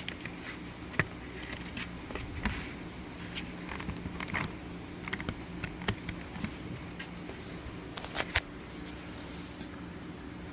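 Hard plastic clicks and taps from a motorcycle helmet's visor pivot side cover being handled and fitted, with a few sharper snaps, the loudest about a second in and a pair just after eight seconds, over a steady low hum.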